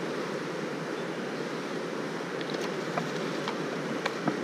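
Steady rushing of a fast-flowing river. A few light clicks come in from about two and a half seconds in.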